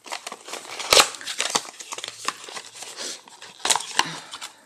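Wrapping crinkling and rustling as a small plastic jar of clay face mask is unwrapped and handled. There is a sharper click about a second in and another near the end.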